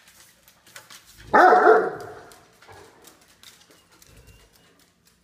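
Great Dane giving one loud, drawn-out bark-like 'talking' call about a second in, its pitch bending up and down before trailing off. Dog claws tick faintly on the tile floor around it.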